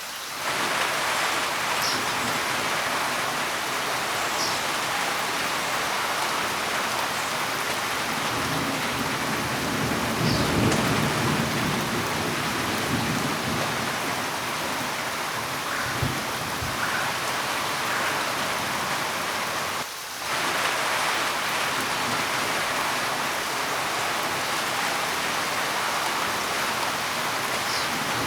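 Steady, heavy rain falling, with a low rumble of thunder swelling about ten seconds in and a shorter low rumble a few seconds later.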